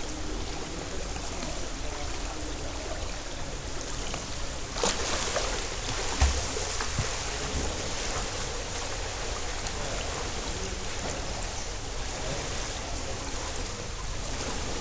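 Swimming-pool water sloshing and splashing, with a louder splash about five seconds in. After it comes a steady, muffled rush of water picked up by a microphone underwater.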